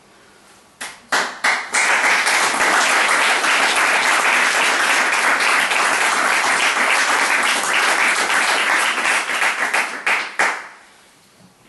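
Audience applauding. It starts with a few scattered claps, swells into steady applause for about eight seconds, then stops with a last couple of claps.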